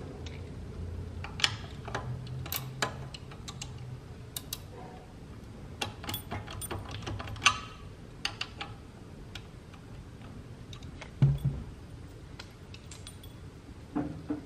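Scattered light metallic clicks and clinks as hands work a bolt at a car alternator's mounting bracket, with a duller knock about eleven seconds in.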